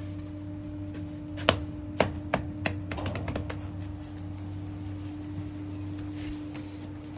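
Sharp, hard taps: four single taps about half a second apart starting about a second and a half in, then a quick run of lighter clicks, over a steady low hum.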